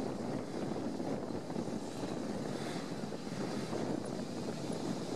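Toyota FJ Cruiser's 4-litre V6 engine running as it works through an off-road course, a steady drone.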